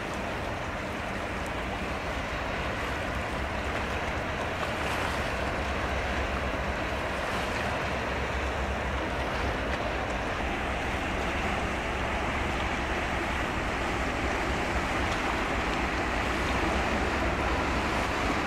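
Steady strait-side ambience of water wash and wind, with a low rumble underneath that grows slowly louder toward the end.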